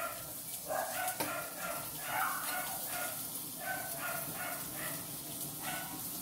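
A dog barking over and over in quick short yaps, about two to three a second.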